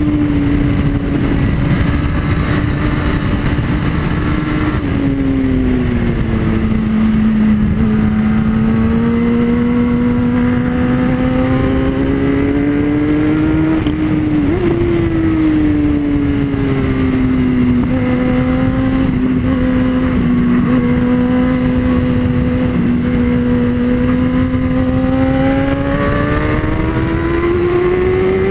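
Kawasaki ZX-10R inline-four sport bike engine running hard at high revs on a race track, heard onboard under heavy wind rush. The engine note drops about five seconds in, jumps briefly about halfway through as the rider shifts, then rises steadily near the end as the bike accelerates.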